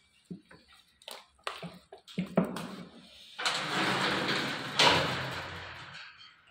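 A metal-framed chain-link cage gate being pulled shut: a few knocks and clicks, then a loud scraping rattle for about two and a half seconds that peaks and fades.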